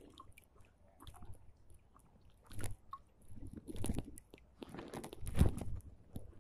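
Irregular crunching and rustling handling noise from an angler wading among dry reeds, with three louder clusters about a second or so apart.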